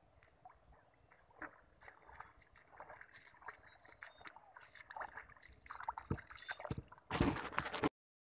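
Barefoot footsteps squelching and splashing through a flooded, muddy rice paddy, getting louder and closer. Near the end a loud close-up handling rustle lasts under a second, then the sound cuts off suddenly.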